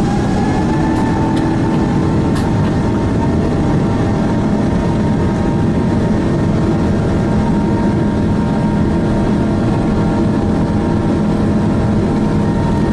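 Boeing 777-200ER turbofan engines at takeoff thrust: a steady whine over a heavy rumble, its pitch rising and then levelling off about a second in.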